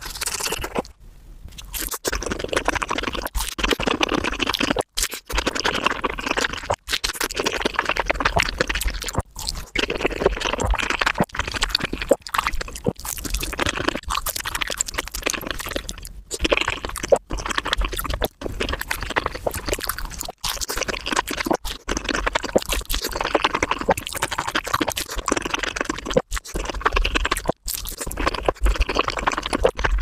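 Close-miked eating sounds of burgers and fried chicken played back at several times normal speed: a fast, continuous stream of chewing, crunching and wet mouth noises. The stream is broken by brief gaps every second or two.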